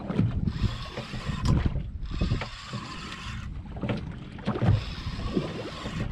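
Wind buffeting the microphone over a small boat at sea, with irregular low rumbles and knocks and an uneven hiss of wind and water.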